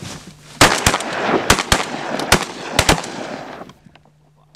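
A rapid volley of about seven shotgun shots from several hunters within two and a half seconds, each with a rolling echo, then the echo dies away before one more shot right at the end.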